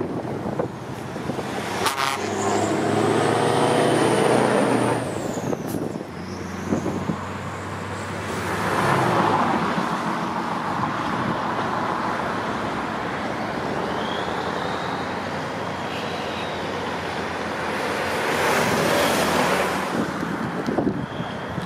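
Classic Scania V8 trucks driving past. One truck's diesel engine runs steadily for a few seconds near the start, then swells of engine and road noise come as more trucks pass, about nine seconds in and again near the end.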